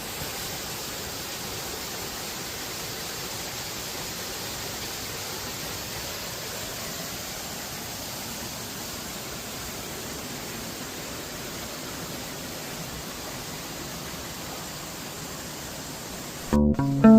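Steady rushing of a mountain creek's white-water cascades. Guitar music comes in, louder, just before the end.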